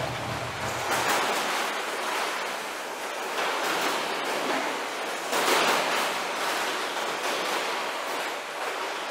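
Water spraying over cut aloe vera leaves on a washing line, with a low machine hum that stops about a second in; then wet aloe leaves being shuffled by gloved hands in a tray, a splashing, rustling rush that swells three times.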